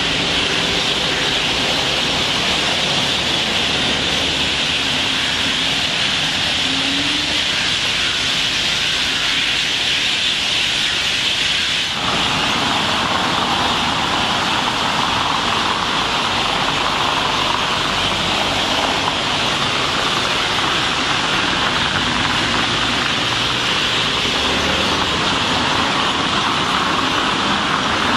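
Loud, steady din of a large flock of roosting birds chattering together in the trees at dusk, blended into one continuous high hiss, over a low rumble of road traffic. The background changes abruptly a little under halfway through.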